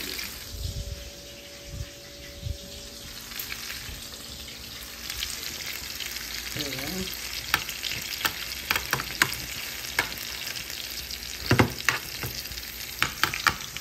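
Chicken breasts sizzling in melted butter with garlic in a metal frying pan, the hiss growing louder about five seconds in. A metal spoon clinks and scrapes against the pan as it moves the butter around, with the clicks coming thick from about halfway through.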